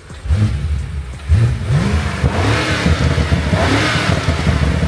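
BMW F90 M5's twin-turbo V8 revved several times in quick blips, each rev rising and falling in pitch, with a rushing intake sound on the stronger revs. This is the stock intake sound, before aftermarket intakes are fitted.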